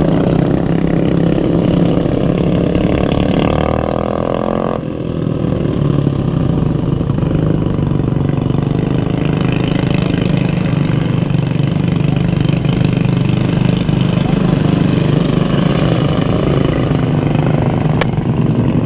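Racing lawnmower engines running hard in a race. A rising engine note climbs over the first few seconds and cuts off sharply about five seconds in, followed by a steady drone. There is a single sharp click near the end.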